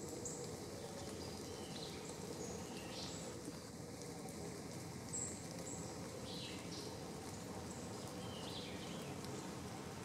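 Songbirds calling in woodland: scattered short, high chirps and whistled notes, some rising or falling, over a steady low background rumble.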